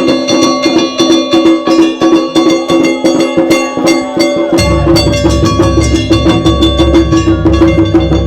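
Live Japanese taiko drumming: rapid sharp strikes over steady held pitched tones, with deep drum beats coming in about halfway.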